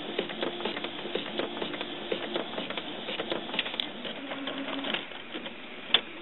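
Canon MX/MG series inkjet printer mechanism running through a print job, a busy stream of small clicks over a steady motor hum. The hum drops lower a little after four seconds, and the machine goes quiet about five seconds in as it halts with a low-ink warning, leaving one click near the end.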